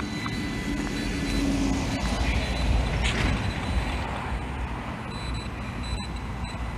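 A road vehicle passing, its rumble swelling over the first few seconds and then easing.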